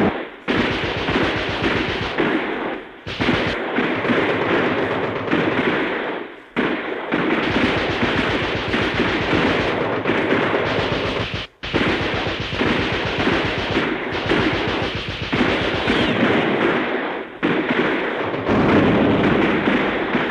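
Recorded battle background from an old sound-effect record: continuous rapid machine-gun fire mixed with gunshots, with brief breaks a few times.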